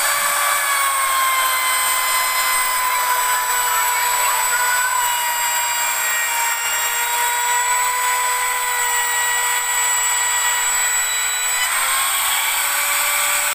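Compact corded trim router running with a steady high whine as it cuts a decorative profile along a wooden board's edge. Its pitch sags slightly under the load of the cut and comes back up near the end, then the router cuts off suddenly.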